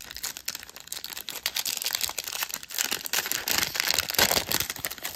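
Foil trading-card pack wrapper being torn open and crinkled by hand: a dense, irregular run of crackling and rustling.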